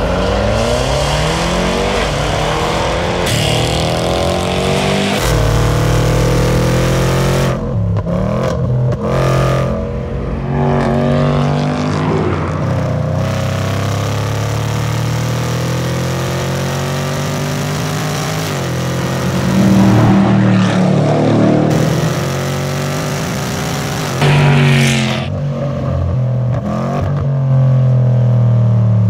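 Range Rover Sport SVR's 5.0-litre supercharged V8 accelerating hard and revving through the gears, its pitch climbing and dropping again and again with each upshift.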